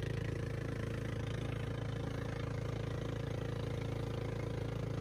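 Engine of a motorized outrigger boat (bangka) running steadily as the boat moves under way across open water.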